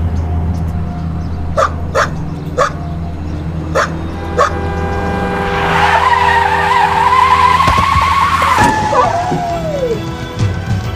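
A dog barking about five times, then car tyres screeching under hard braking for about three seconds, ending in a short cry that falls in pitch, as the car strikes the dog.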